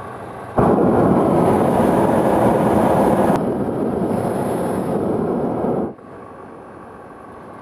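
Hot-air balloon's propane burner firing: a loud, even roar that starts suddenly about half a second in, eases slightly partway through, and cuts off abruptly about six seconds in.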